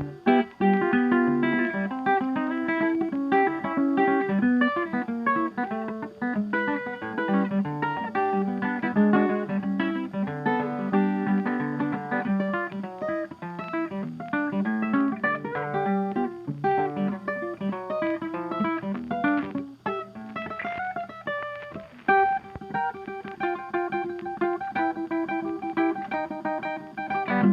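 Background music: plucked and strummed acoustic guitar playing a lively, busy line.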